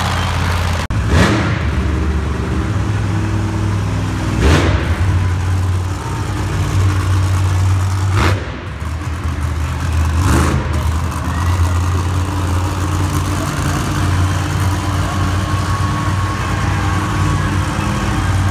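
Monster truck engine running with a steady deep drone, with a few brief loud bursts along the way.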